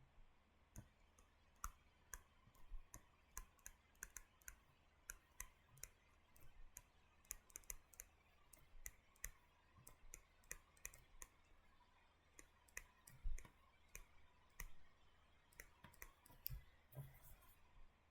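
Faint, irregular clicks and taps of a stylus on a tablet screen while handwriting, a few a second, one slightly louder tap about two-thirds of the way through.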